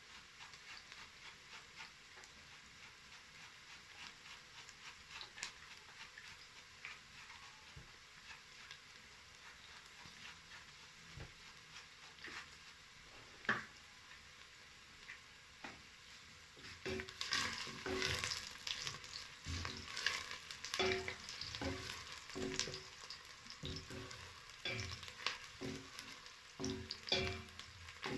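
Onions frying in a pan, a faint steady sizzle and crackle. About two-thirds of the way in, a spoon starts stirring and scraping the pan, with louder irregular clicks and clatter.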